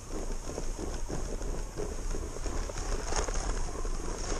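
Home-built electric snowboard with a 3D-printed tread drive creeping forward over snow: dense, irregular crunching and scraping of board and tread in the snow, over a steady low rumble.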